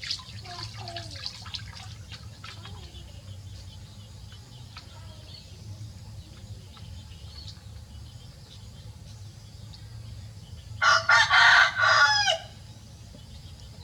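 A rooster crowing once, about a second and a half long, near the end, over a faint steady low hum.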